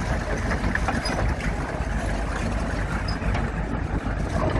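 Engines of M4 Sherman tanks running as they drive past in a column: a steady low rumble with mechanical noise.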